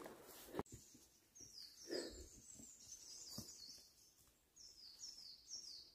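Faint, high-pitched bird song: short phrases of quick notes, each sliding down in pitch, repeated about six times.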